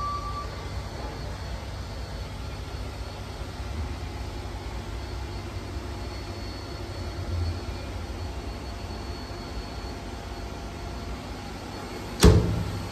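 Steady low machinery hum with a faint high whine over it. Near the end comes a single sharp knock, the loudest sound.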